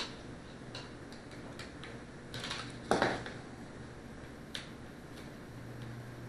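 Small screwdriver clicking and scraping against the plastic frame of an RC helicopter as the tiny motor screws are undone. There are scattered light ticks, a louder knock about three seconds in and a sharp tick a little later.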